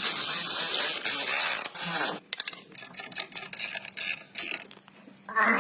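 Ratchet tool working on the refitted front drive axle shaft: about two seconds of steady whirring, then several quick runs of ratcheting clicks.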